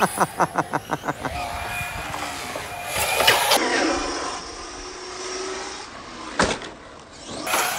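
Arrma RC car's electric motor whining and its tyres running on concrete, pulsing rapidly for the first second, then running steadily. A single sharp knock about six and a half seconds in.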